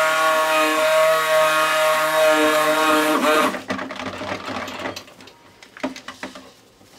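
Stick blender running with a steady whine in cold process soap batter, switching off about three seconds in. A few light knocks follow.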